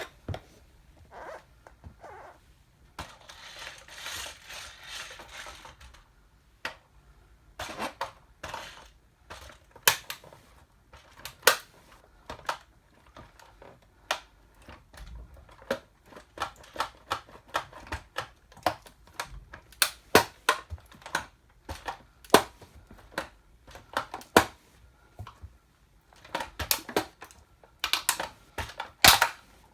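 A plastic toy car cracking and snapping under an 8-inch platform high heel as it is crushed: an irregular run of sharp cracks and clicks, with a scraping rustle a few seconds in.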